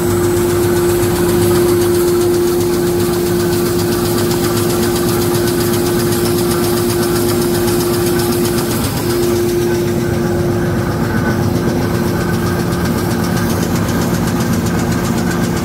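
Two-lane N-fold hand towel making machine running: a steady mechanical hum with a constant pitched drone and a fast, even clatter on top.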